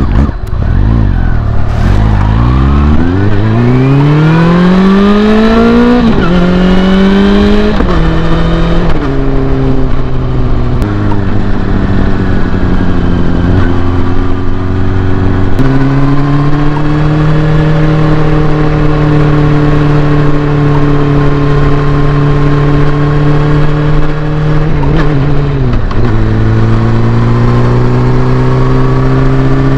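Honda CB400 Super Four inline-four with a Yoshimura slip-on exhaust, pulling away from a stop and accelerating hard through the gears: the exhaust note rises steeply and drops at each upshift. It then holds at steady revs while cruising, with a brief dip in revs near the end.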